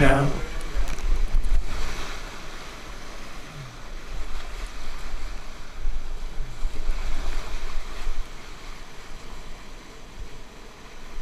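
Whitewater rapids rushing around a kayak, with wind and water buffeting the helmet-mounted camera's microphone in a low rumble. The sound is louder for about the first eight seconds, then quieter.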